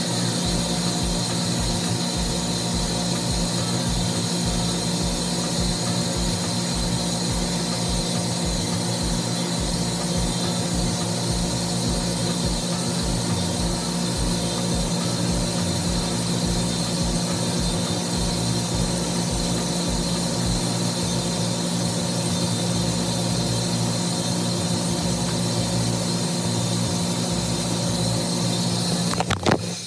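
Steady hum of machinery running in a mechanical room, several constant tones over a low rumble, broken by a few sharp clicks just before the end.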